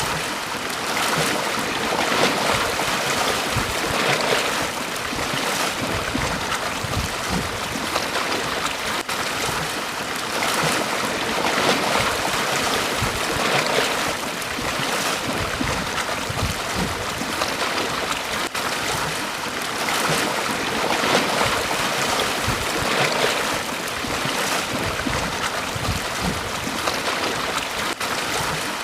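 Sea waves breaking and washing on a beach, in a steady rushing wash that swells every couple of seconds, with low rumbling that suggests wind on the microphone.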